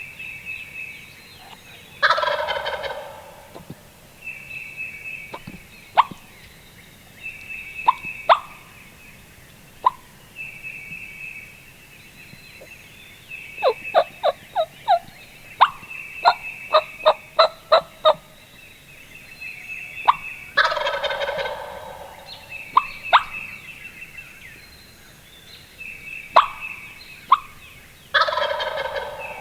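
Wild turkey gobbler gobbling from the roost three times: about two seconds in, around twenty seconds in, and near the end. Between the gobbles a bird repeats a short high trill every couple of seconds, and a quick run of sharp clicks comes midway.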